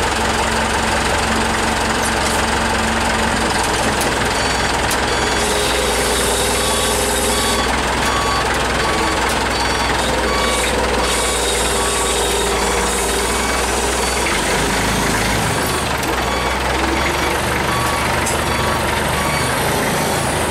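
Old yellow forklift's engine running steadily as the forklift moves off, the engine note changing about three quarters of the way through.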